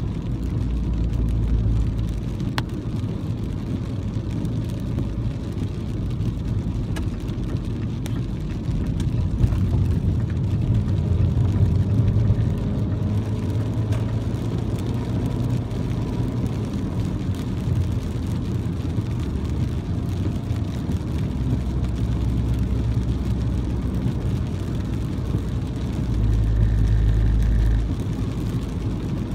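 Car driving at highway speed on a rain-wet road, heard from inside the cabin: a steady low rumble of tyres and engine. It swells briefly near the end.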